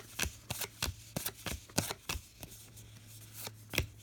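Trading cards being flipped through by hand, card sliding off card in a quick, irregular run of short flicks and clicks.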